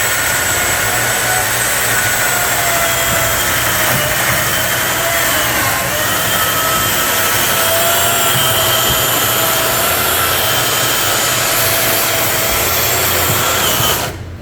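Chainsaw running steadily while cutting stair stringers, its pitch sagging slightly partway through, then stopping suddenly near the end.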